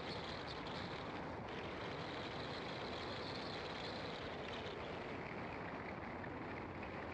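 Car driving along a winding country road, heard from inside the car: steady engine and tyre noise with no sudden events. A faint higher-pitched hiss fades out about two-thirds of the way through.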